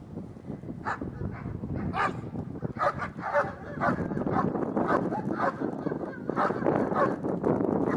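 Dog barking repeatedly, the barks coming about once a second at first, then louder and running together into a near-continuous din in the second half.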